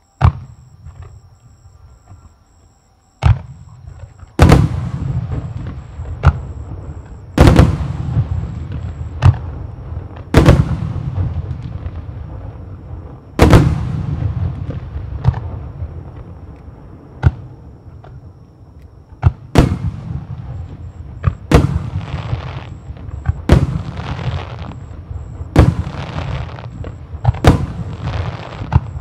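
Starmine display of aerial firework shells bursting in quick succession: about fifteen sharp booms, one every second or two, each trailing off in a long echoing rumble.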